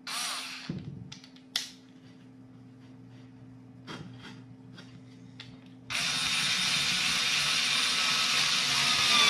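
TECCPO 4 V cordless screwdriver's motor starting about two-thirds of the way in and running steadily while driving a screw into plywood. Its whine falls slightly in pitch near the end as the screw drives in. Before it starts there are a few light knocks from handling.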